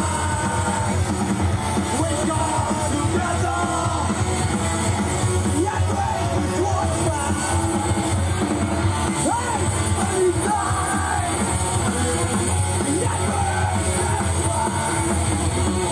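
Punk rock band playing live: electric guitars, bass and drum kit with a lead singer singing into the microphone, heard from within the crowd.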